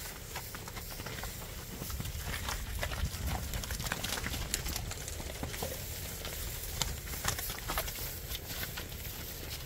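Bred heifers shifting about in a straw-bedded pen: scattered hoof steps and rustling straw, over a steady low rumble.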